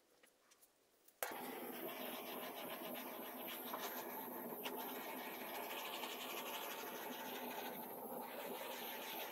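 Small handheld gas torch lit with a sharp click about a second in, then hissing steadily as its flame burns.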